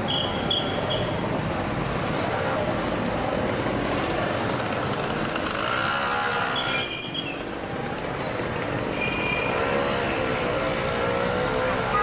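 Busy city street traffic: a steady rumble of vehicles. Short high ringing tones sound near the start, about 7 s in and about 9 s in. Wavering pitched sounds come about 6 s in and again from about 9.5 to 11 s.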